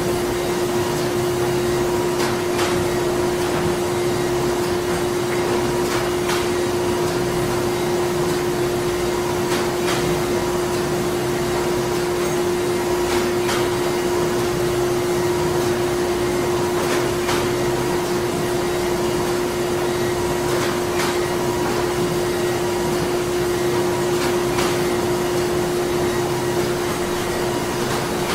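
Printing-plant machinery running steadily: a constant mechanical drone with a steady hum tone and a faint click every three to four seconds.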